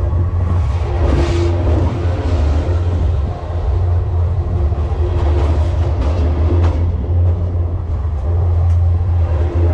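Freight train cars rolling past at rail level: a loud, steady low rail hum from the wheels on the track, with a few brief clicks.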